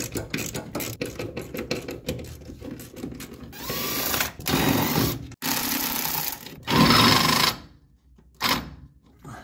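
A power tool undoing the half-inch nuts that hold a brake master cylinder to its booster. It clicks rapidly for about three seconds, then runs in four bursts of about a second each, one with a rising whine, and gives a short burst near the end.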